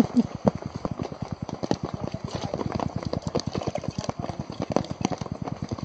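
Rain pattering on a tarp fly sheet and dripping off its corner into a water bottle being filled: a rapid, irregular patter of drops.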